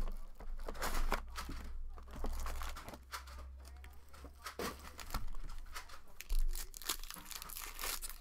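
Trading card pack wrappers being torn open and crinkled by hand: irregular tearing and crinkling rustles, with short louder bursts.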